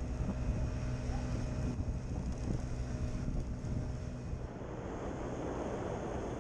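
Scooter engine running steadily at road speed, with wind noise on the microphone. A little over halfway through, the engine hum fades and a rougher wind rush takes over.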